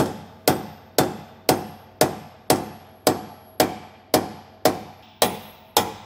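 A steel hammer striking the pin of a Durabilt hammerlock coupling link, driving it through the link's centre to lock it: about a dozen strikes at an even pace of roughly two a second, each a sharp metallic hit with a short ring.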